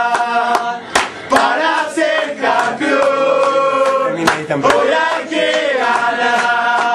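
A group of football supporters singing a chant together in unison, with some hand claps mixed in.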